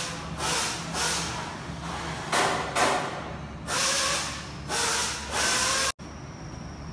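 Assembly-floor noise: repeated short bursts of hissing compressed air from air tools over a steady low machine hum. Near the end it cuts abruptly to a quieter steady hiss with a faint high whine.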